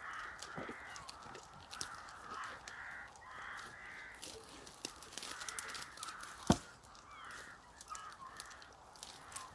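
Birds giving repeated short, harsh calls, roughly one a second, with scattered faint clicks and one sharp knock about six and a half seconds in.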